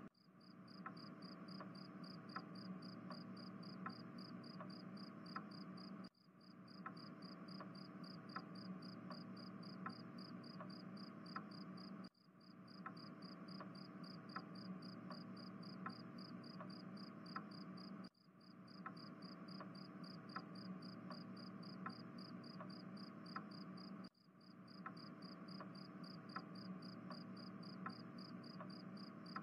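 Faint crickets chirping in a rapid, even pulse: a looped night ambience that drops out briefly and restarts about every six seconds.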